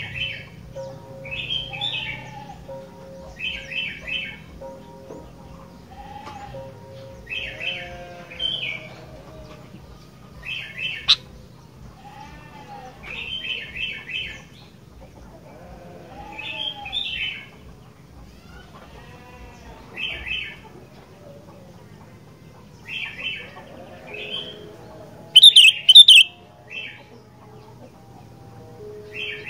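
Sooty-headed bulbul (kutilang) singing short, chattering chirp phrases, about one every one to two seconds. About 25 seconds in comes a much louder, harsher burst of calls.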